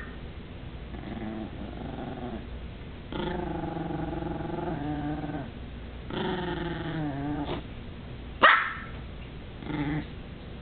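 Teacup Yorkshire terrier growling in three drawn-out rumbles, then one sharp bark about eight and a half seconds in, the loudest sound, and a shorter, weaker bark about a second later.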